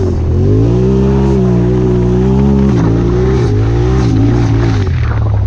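Turbocharged Polaris RZR side-by-side engine under throttle: the revs climb in the first half-second, hold steady for about two seconds, drop off, then rise and fall again.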